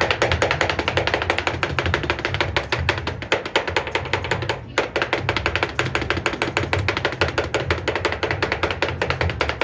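A kitchen knife chopping fast and steadily on a cutting board, mincing raw tuna for tartare, with a very brief pause about halfway through. Background music with a pulsing bass line plays underneath.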